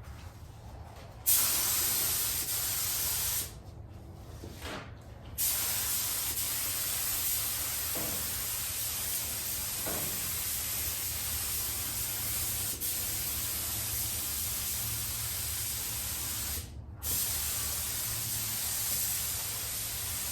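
Clear coat being sprayed onto a truck's body, a loud steady hiss in three passes. There is a short burst near the start, one long pass of about eleven seconds, and a last pass after a brief break, each starting and cutting off sharply as the spray is triggered and released.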